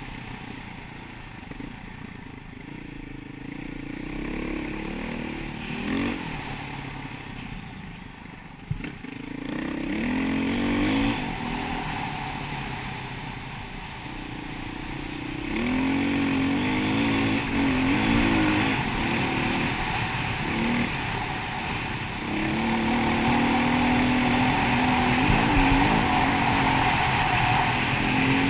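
KTM 525 EXC single-cylinder four-stroke enduro motorcycle being ridden, its engine note repeatedly rising and falling as the throttle opens and closes and it changes gear. It grows louder about halfway through.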